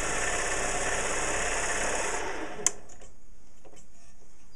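Small bench lathe running while the tool turns the teeth off a brass clock wheel. It winds down and stops about two and a half seconds in, with a sharp click. Light handling ticks follow.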